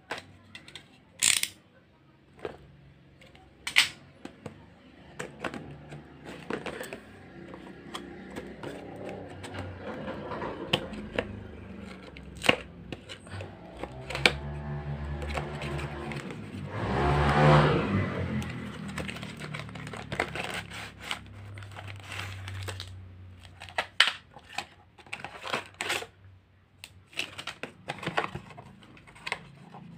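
A cardboard toy box being opened by hand. A utility knife slits the tape seal, with sharp clicks and taps from the knife and box. Then the cardboard slides and scrapes as the box is pulled apart and the insert drawn out, loudest in the middle.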